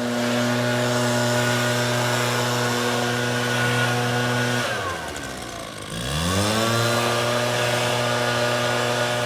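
Battery-powered DeWalt chainsaw running at a steady high speed. About five seconds in it slows down sharply and then speeds back up.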